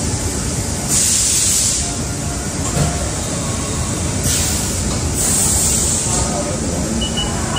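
Machine-shop noise: a steady low rumble of running machinery, with three short bursts of hiss, one about a second in and two between about four and six seconds in.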